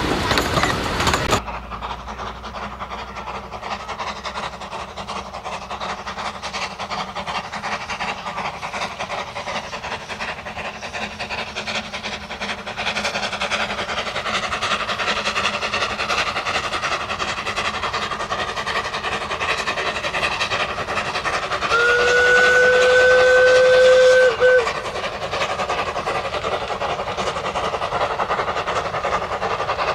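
Narrow-gauge Hunslet quarry saddle-tank steam locomotive working hard up a gradient with its passenger train, steam exhaust and wheels on the rails running steadily. About two thirds of the way through it gives one steady whistle blast lasting a couple of seconds. The opening second is coaches running close by, cut off suddenly.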